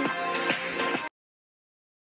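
Background music with a steady beat, cutting off suddenly about a second in.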